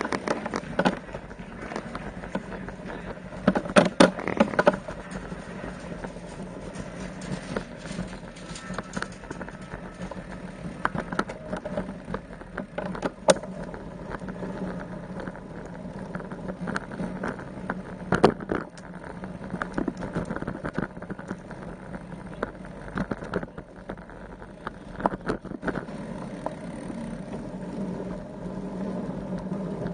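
Wind buffeting the microphone over the running noise of a road bicycle being ridden, with frequent sharp knocks and rattles from the bike over the road surface.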